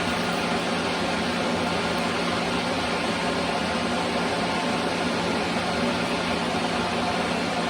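Electric countertop blender running steadily, its motor whirring as it blends ice cream, milk and Oreo cookies into a milkshake.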